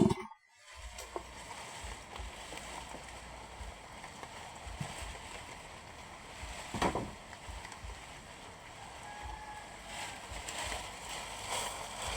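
Faint, steady background noise with a few soft knocks, the loudest about seven seconds in.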